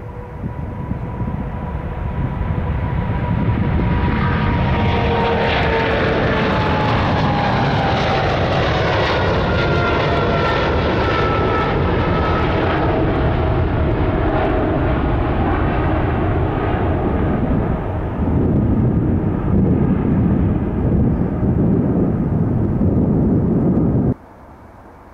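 KLM Boeing 777-300's twin jet engines at takeoff power as it lifts off and climbs out: a heavy, steady rumble that builds over the first few seconds, with whining tones that slide down in pitch as the jet passes. The sound cuts off abruptly near the end.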